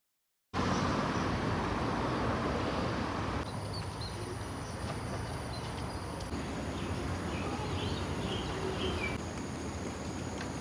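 Outdoor ambience: a steady rushing background noise with a few faint bird chirps from about four seconds in. The background changes abruptly every few seconds.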